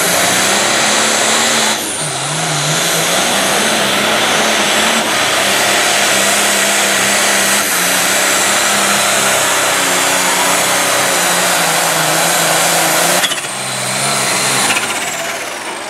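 Blue Ford pulling tractor's diesel engine at full throttle, loud and steady with a high whine on top, as it hauls the weight sled down the track. About 13 seconds in the throttle comes off, the engine note drops and the whine falls away as the pull ends.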